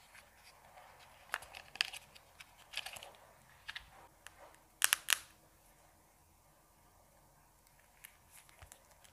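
Light clicks and rustles of a phone's packaging and accessories being handled, with a charger lifted out of its white plastic tray. The loudest moment is a pair of sharp clicks about five seconds in, followed by a few faint ticks near the end.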